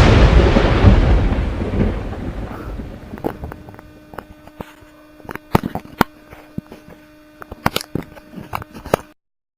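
Thunder: the rumble of a thunderclap fading away over about three seconds, followed by scattered sharp crackles over a steady low hum. The sound cuts off suddenly near the end.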